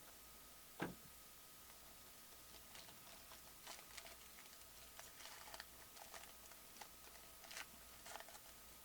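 A single knock about a second in, then faint scattered rustling and crinkling as a trading-card box and its packs are handled and opened.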